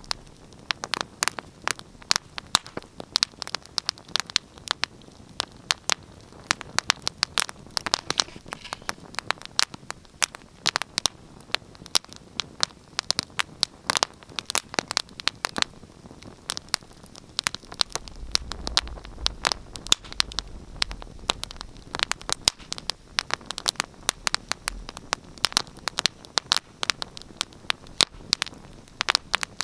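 Wood fire crackling in a fireplace: a steady stream of irregular sharp snaps and pops over a soft hiss, with a brief low rumble a little past the middle.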